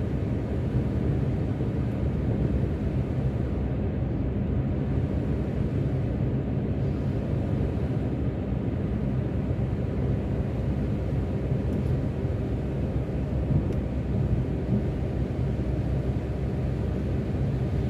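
A car being driven, heard from inside the cabin: a steady low rumble of engine and road noise with a faint hum.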